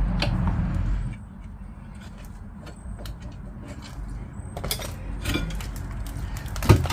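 A few sharp metal clinks and knocks from parts and tools being handled on a car's front suspension, over a low steady rumble that drops about a second in.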